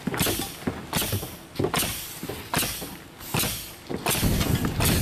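Ring-shank nails being driven into plywood roof decking: a series of sharp strikes, about one every 0.8 seconds.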